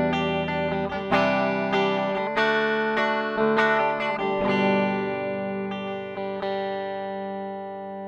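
Ibanez GRGR121EX electric guitar played clean on its bridge humbucker. Notes and chords are picked through the first half, then a chord is left ringing and slowly fades.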